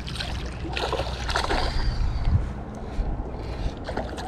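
Hooked pickerel thrashing and splashing at the water's surface beside the boat, loudest about one to two seconds in, over a steady low rumble.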